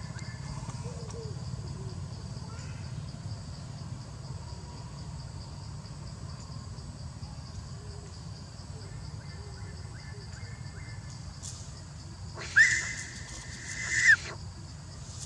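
A young macaque screaming in one long, high-pitched call of about a second and a half while a dog grapples with it. The call rises at the start, holds, and drops at the end, loudest at its onset and again just before it cuts off.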